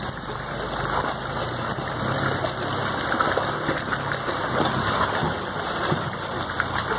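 Suzuki Vitara's tyres rolling and splashing through a shallow, stony stream, water churning and dripping off the wheel, with the engine running low underneath in low-range gearing.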